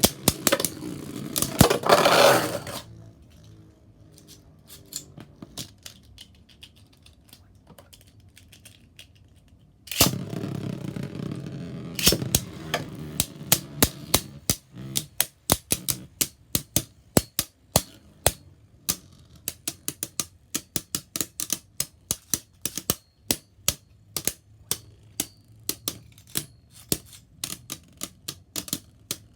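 Spinning Beyblade Burst tops clashing in a plastic stadium: bursts of sharp plastic-on-plastic clicks over a rushing whirr, a quieter stretch of faint steady spinning, then a sudden loud whirr about ten seconds in followed by a long run of rapid clicks that thin out toward the end.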